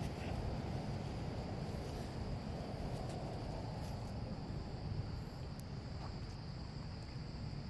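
A steady outdoor insect chorus, one high even drone that does not let up, over a low rumble of background noise.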